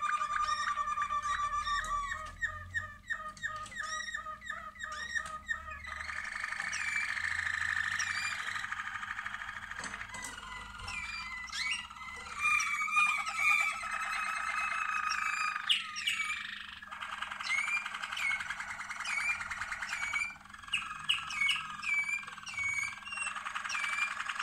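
Domestic canaries singing: long trills of rapidly repeated notes, overlapped by quick upward-sweeping chirps, with more than one bird singing at once in places.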